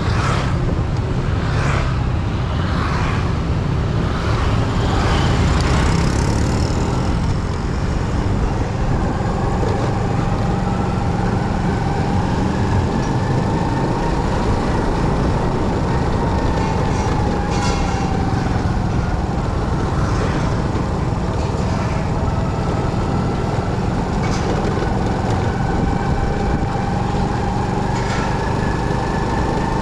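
Motorcycle running on the road: a steady low rumble of engine and road noise, with a thin whine whose pitch drifts slowly up and down.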